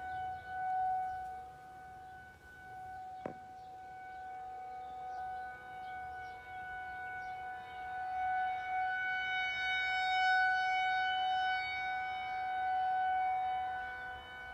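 Outdoor warning siren wailing on one steady pitch, its loudness swelling and fading as it sweeps round and loudest about two-thirds of the way through; it is sounding outside its usual first-Wednesday test schedule. A single click sounds about three seconds in.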